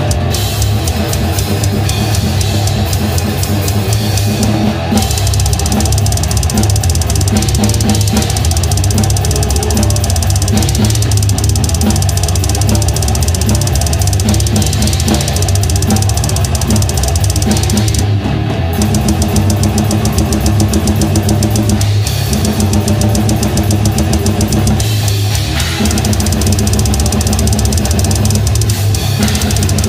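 A band playing live in a small rehearsal room: electric guitar through a Mesa amplifier, bass guitar and a drum kit with crash cymbals, loud and unbroken. The cymbals drop out for a moment about eighteen seconds in.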